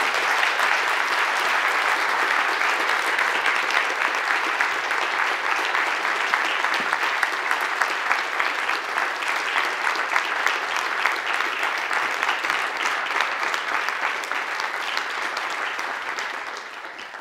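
Lecture-hall audience applauding, a dense steady patter of many hands clapping that fades away near the end.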